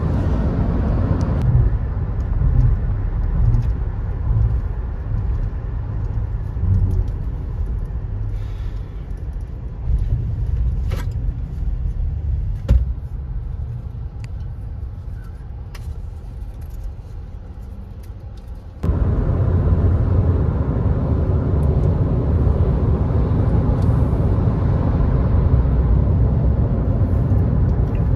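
Road and engine rumble inside a moving car's cabin. It fades gradually as the car slows for a toll plaza, with a couple of sharp clicks, then about two-thirds of the way through jumps abruptly back to the louder, steady rumble of highway speed.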